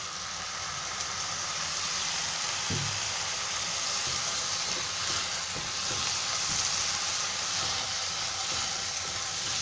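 Shredded carrot, papaya, chicken and scrambled egg sizzling as they stir-fry in oil in a nonstick pan, a steady hiss that grows a little louder after the first second. A silicone spatula turns the food, with faint scraping ticks against the pan.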